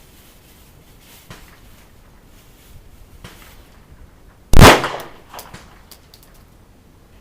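A single very loud handgun shot about four and a half seconds in, with a short echo trailing off after it. Fainter shots from elsewhere on the range pop before and after it.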